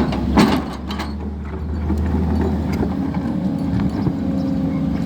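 SANY hydraulic excavator's diesel engine running steadily under work, with a sharp knock about half a second in as the machine breaks up a concrete drain, and a steady whine joining after about two seconds.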